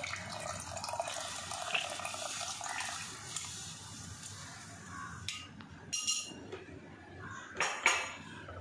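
Tamarind water poured from a glass bowl into a pan of curry masala, splashing steadily for about five seconds. It is followed by a few sharp clinks and knocks of utensils against the bowl and pan, the loudest near the end.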